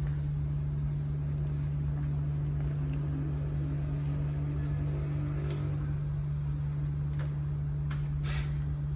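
Motorcycle engine running steadily with an even low hum, with a few short clicks in the second half.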